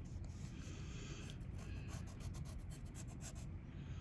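Pencil drawing on paper: faint scratching of many short, quick strokes.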